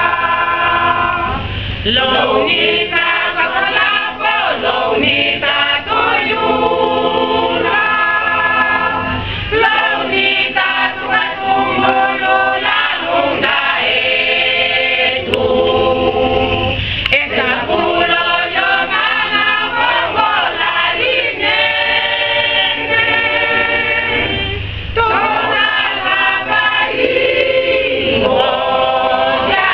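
Mixed choir of women and men singing together, loud and continuous.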